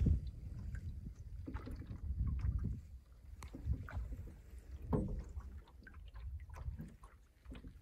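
Water splashing and lapping around a canoe as it is paddled, with an uneven low rumble of wind on the microphone.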